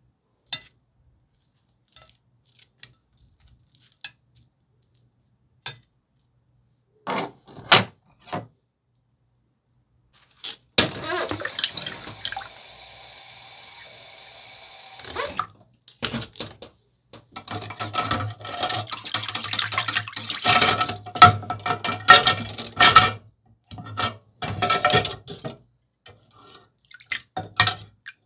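Kitchen sink sounds: a few light clicks, then a tap runs for about five seconds and shuts off sharply, followed by dishes and pots clattering and clinking with a ringing tone.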